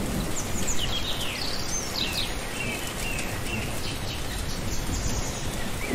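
Birds chirping in short, high, falling calls, repeated throughout, over a steady hiss of outdoor garden ambience.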